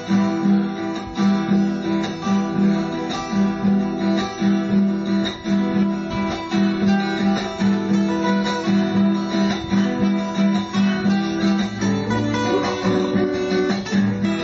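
Background music: guitar playing with a steady beat.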